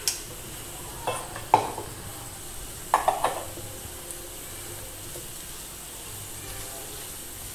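A spatula stirring and scraping cluster beans in a frying pan over a steady low sizzle, with a few short scrapes and knocks against the pan around one, one and a half and three seconds in.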